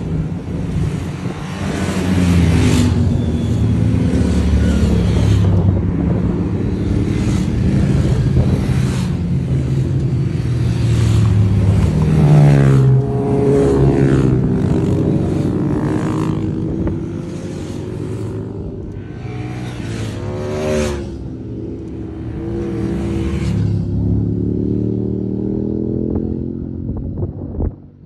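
A stream of motorcycles passing at speed one after another, engines revving, each one's pitch falling as it goes by. The last bikes fade away near the end.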